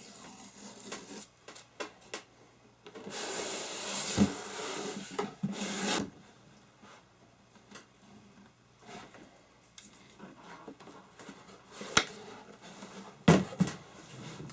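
Wooden machinist tool chest being handled: a few seconds of rubbing and sliding noise with a knock, then quieter handling and two or three sharp knocks near the end.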